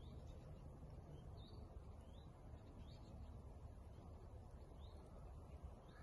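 Faint bird chirps, short rising notes repeated every half second to a second, over a low, steady outdoor rumble.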